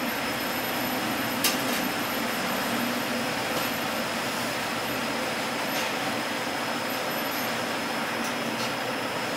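Steady hum and hiss of kitchen ventilation, with one sharp click about a second and a half in and a few fainter clicks later.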